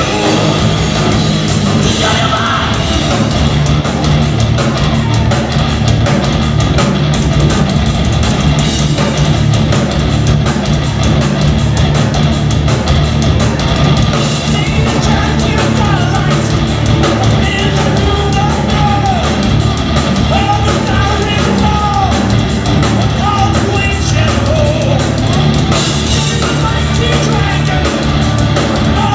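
Progressive metal band playing live, loud and dense, with drums keeping an even beat under the guitars. A voice sings over it through the middle of the passage.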